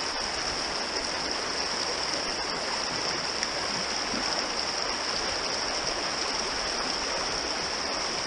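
Shallow, rocky stream running over stones: a steady rush of water.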